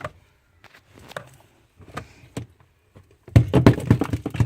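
Ice built up behind a refrigerator freezer's rear panel being broken loose and pulled out: scattered light clicks and knocks, then a dense run of loud cracking and knocking in the last second. The ice buildup around the evaporator fan is what stops the fan and raises the 21E freezer fan error.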